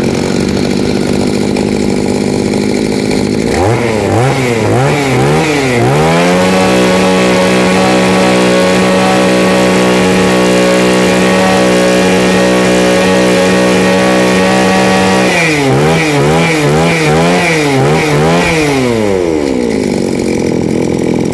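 Mitsubishi TB 23cc two-stroke brush cutter engine running: it idles, is blipped up and down a few times, then held at high revs for about nine seconds, blipped again, and settles back to idle near the end. It revs up and drops back crisply, running strong.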